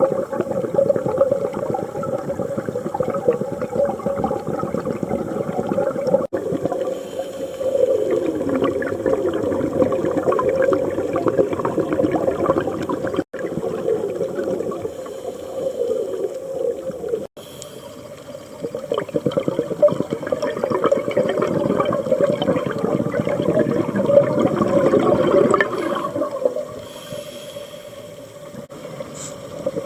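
Scuba diver breathing through a regulator underwater: a hiss on each inhale, then long rushing, bubbling bursts of exhaled air, with a few quieter pauses between breaths.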